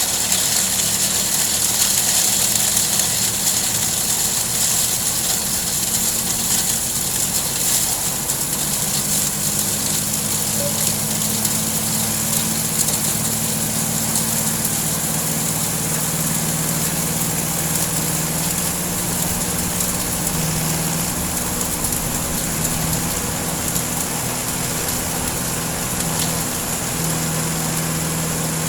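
Small four-stroke grass-cutter engine running steadily, driving a homemade manure grinder, with a constant rattling hiss over the engine's hum.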